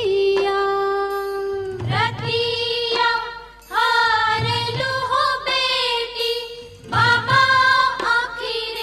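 Bhojpuri film song: a high female voice sings phrases of long held and wavering notes over instrumental backing.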